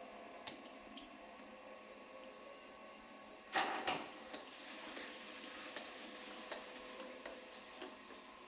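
Scattered light clicks and knocks of hand tools and parts being handled, with a louder cluster of knocks about three and a half seconds in.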